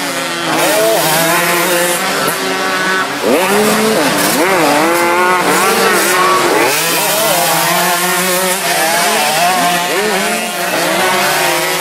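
Several motocross dirt bike engines revving together, their pitch repeatedly climbing and dropping as the riders accelerate and back off.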